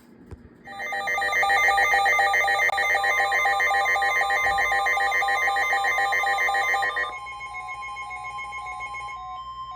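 Weather radio warning alert. A loud electronic alarm warbles rapidly from under a second in until about seven seconds. Beneath it, NOAA Weather Radio's steady 1050 Hz warning tone carries on alone with softer beeping to the end. The sequence signals that a new warning is about to be read.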